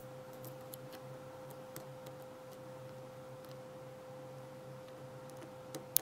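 Small scattered metallic clicks and ticks of a hook pick working the pin stack of an ASSA Ruko 2 padlock under tension, with a sharper click near the end, over a steady faint hum.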